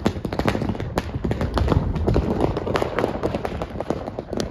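Diwali firecrackers exploding on the street: a fast, irregular run of sharp bangs and cracks, several a second, over a low rumble.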